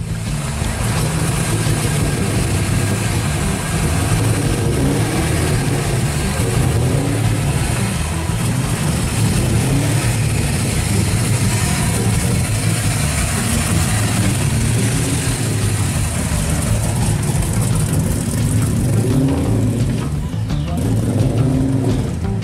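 1970 Dodge Challenger's V8 running at a slow crawl, a deep, steady exhaust note that rises briefly near the end.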